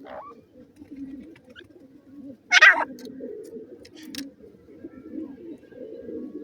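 Grey francolin chicks calling. A continuous low, soft murmur runs throughout, and one loud, short, high chirp comes about two and a half seconds in.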